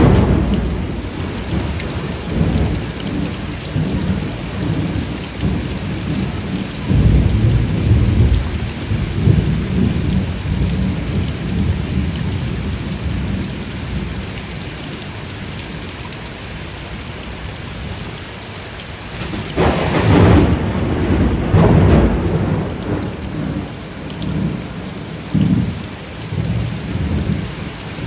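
Steady rain with thunder: a sharp clap right at the start, low rolling rumbles about seven to ten seconds in, and another loud clap and roll about twenty seconds in.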